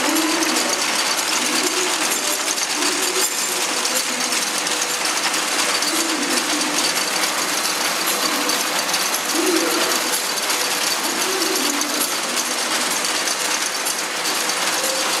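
Braiding machine running as its handle is worked: a steady, dense metallic clatter of its gears and bobbin carriers while it braids thread into a cord.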